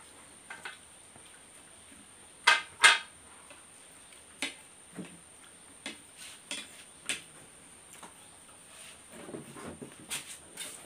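Spoons and forks clinking against plates during a meal: scattered single clinks, the two loudest close together about two and a half seconds in.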